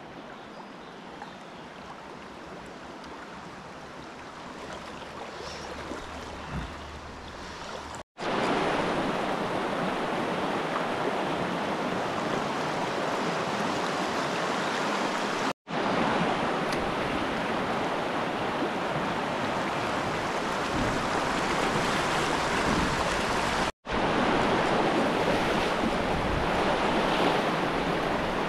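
Steady rushing of a mountain river's flowing water. It is fainter for the first several seconds and louder after a brief drop-out about eight seconds in, and two more momentary drop-outs follow later.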